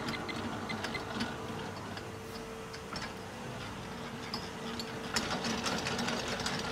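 Large planetary stand mixer running steadily, its motor and gearbox giving a steady hum with a held tone, with scattered light clicks.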